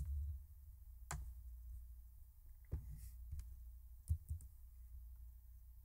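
A few faint, scattered clicks from a computer mouse and keyboard, over a low steady hum.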